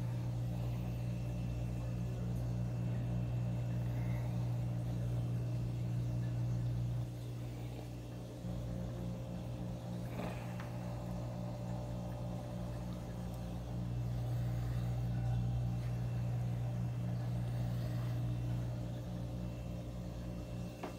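Steady low mechanical hum with a faint thin whine above it. It drops a little about seven seconds in and comes back a second and a half later.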